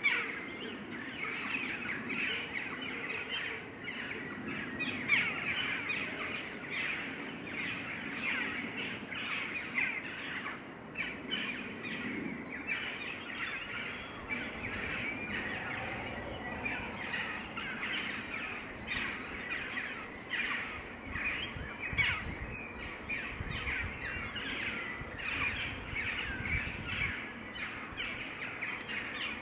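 Wild birds chirping and singing continuously, a busy chorus of short calls, with an occasional louder call standing out.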